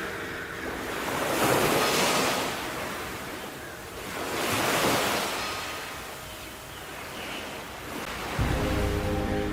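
Sea waves surging and washing in, swelling loudly twice and fading between. Calm music with steady low notes comes in near the end.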